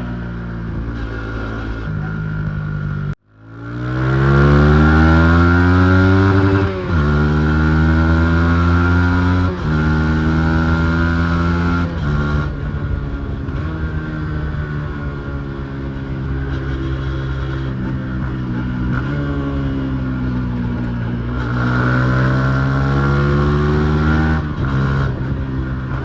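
Yamaha MT-15's single-cylinder engine under way. The sound cuts out abruptly about three seconds in, then the engine revs up hard, and the pitch drops sharply at each upshift, about seven, ten and twelve seconds in. It then cruises, eases off, and picks up speed again near the end.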